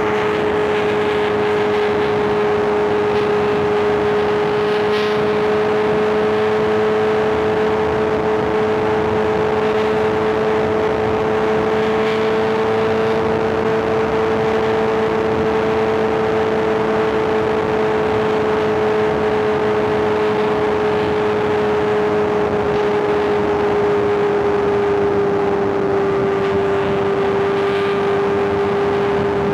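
Inline-four superbike engine running at a steady cruising speed under light throttle, its pitch almost unchanged and dipping slightly near the end.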